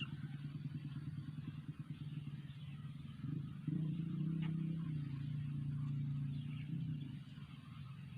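A motor vehicle engine running close by, a low steady hum that grows louder about three and a half seconds in and eases off again near the end, with a faint bird chirp in the middle.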